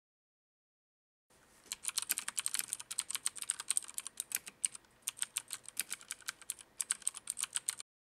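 Fast typing on a Filco Majestouch Convertible 2 mechanical keyboard with clicky Cherry MX Blue switches: a quick run of sharp key clicks that starts about a second in, with two brief pauses.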